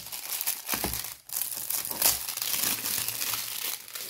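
Clear plastic packaging bag crinkling and rustling as it is handled, with a short break about a second in.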